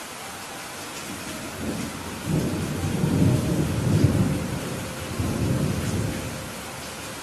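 Steady heavy rain hiss with a peal of thunder: a low rumble builds about two seconds in, peaks in the middle, swells once more and dies away near the end.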